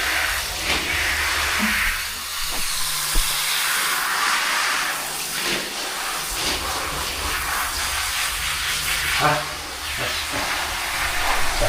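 Shower water spraying in a steady hiss, with a brief knock about three seconds in.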